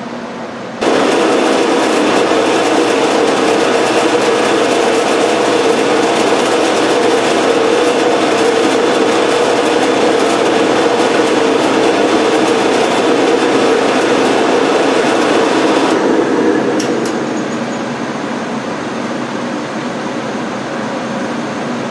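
Drill press boring into plywood with a Forstner bit: a loud, steady cutting and motor sound that starts suddenly about a second in. After about sixteen seconds it drops quieter as the cut ends, and the press runs on unloaded.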